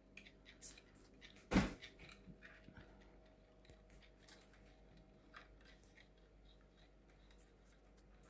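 Faint small metallic clicks and ticks from a cuckoo clock's chain and parts being handled, with one louder knock about one and a half seconds in.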